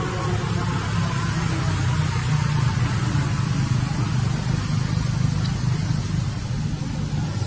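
Steady low rumble under a constant hiss, with no change or break, like a motor running.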